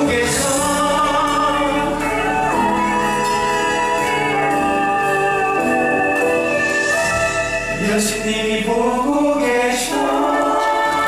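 Stage musical cast singing a number together over instrumental accompaniment, with several voices holding long notes.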